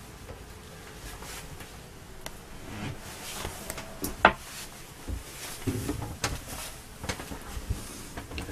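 Scattered light knocks and clicks of movement and camera handling in a small wood-lined cabin, with one sharper click about four seconds in and a few dull low knocks later.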